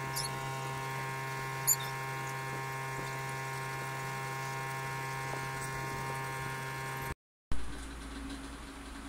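A steady electrical hum at one constant pitch, with two short sharp clicks in the first two seconds. It cuts off suddenly near the end and gives way to a brief thump and a different, noisier background.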